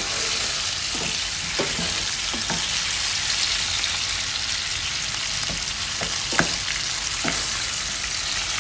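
Shallots, garlic and red chilies sautéing in oil in a nonstick pan, making a steady hissing sizzle. A wooden spatula stirring them knocks and scrapes against the pan now and then, most sharply about six seconds in.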